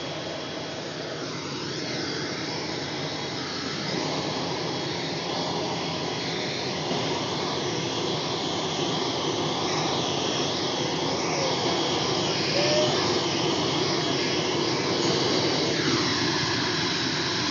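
Turboprop airliner engine running steadily on the apron: an even rushing whine that grows gradually louder.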